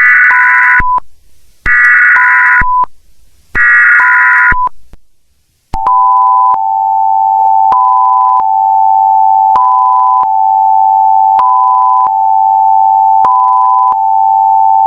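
Emergency Alert System alert tones: three short, buzzy bursts of digital header data, each followed by a brief beep, then the steady two-tone attention signal with a higher beep pulsing on and off about every two seconds over it.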